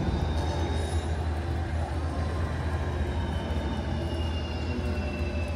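Steady low mechanical hum under a constant hiss of rain, with faint high tones that slowly fall in pitch.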